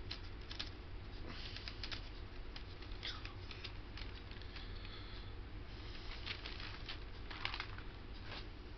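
Scattered small rustles and clicks of objects being handled close to the microphone, over a steady low hum.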